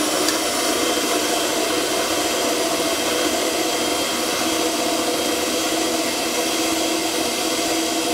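Electric mixer running steadily, with a constant motor whine over a whirring hum, beating cookie dough as flour is added in batches.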